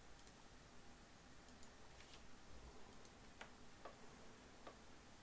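Near silence: faint room tone with a few scattered, faint computer-mouse clicks, more of them in the second half.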